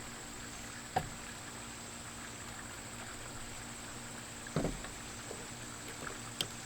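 Steady background hiss with a faint high whine and low hum, broken by a sharp click about a second in, a soft knock about four and a half seconds in and a small click near the end: handling noise as the smart speaker is set into its cover.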